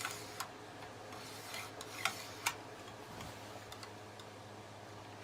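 A few faint, scattered clicks and short light scrapes from handling a cleaning brush and the metal parts of a disassembled lever-action rifle, over a steady low hum.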